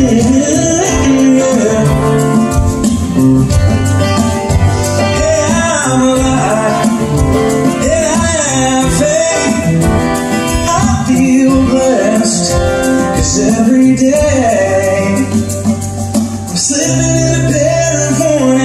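Live song: a man singing with two acoustic guitars accompanying.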